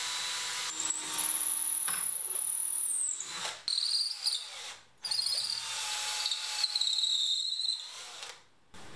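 Cordless drill boring a hole into a wooden screwdriver handle: a high whine that starts about a second in, breaks off twice for a moment, and fades out near the end.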